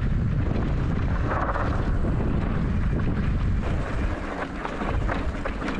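Wind buffeting a camera microphone over an enduro motorcycle running on a trail. The low rumble drops for a moment about four seconds in.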